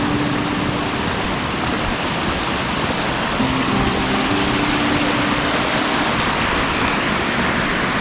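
Steady rush of cascading mountain water, with quiet plucked-guitar background music at the start and again around the middle.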